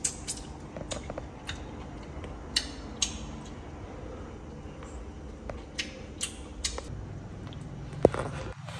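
Light kitchen handling sounds: scattered small clicks and taps of wooden chopsticks against a stainless steel saucepan, with one louder sharp knock about eight seconds in, over a low steady hum.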